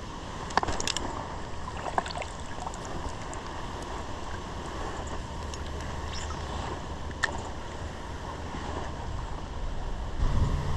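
Steady rush of a shallow river's current, with a low rumble of wind on the microphone and a few scattered clicks and knocks.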